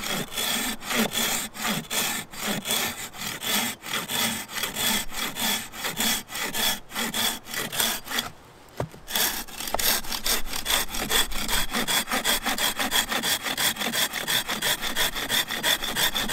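Stedi folding pruning saw cutting through a small aspen log in steady back-and-forth strokes, with a short pause about halfway through.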